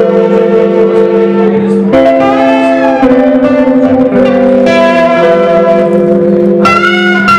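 Solo electric guitar played through an amplifier, instrumental: loud sustained notes and chords, with a bent, wavering note about two seconds in and a high note held near the end.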